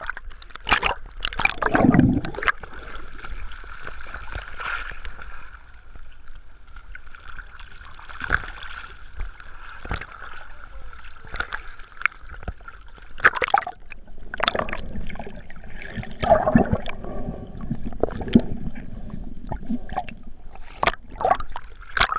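Sea water sloshing and splashing over a GoPro in its waterproof housing as it bobs at the surface, dipping in and out of the waves, with sharp splashes at irregular moments.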